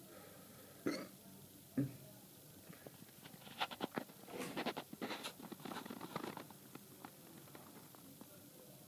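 A person hiccups twice, about a second apart. Then comes a few seconds of quick soft clicks and breathy sounds.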